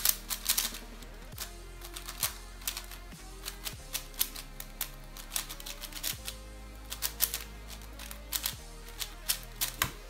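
Fast, irregular plastic clacking of a Cubicle Wushuang M 5x5 speedcube being turned during a solve, over background music.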